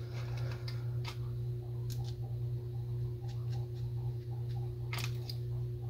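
Small, irregular clicks and ticks from a Zebco One Classic spincast reel's metal parts as its handle is fitted and the mechanism is worked, with one sharper click about five seconds in. A steady low hum runs underneath.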